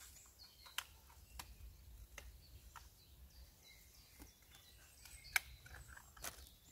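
Scattered sharp clicks and taps of small fishing tackle and a plastic tackle box being handled, the loudest a little past five seconds in, over a low background rumble with faint birds chirping.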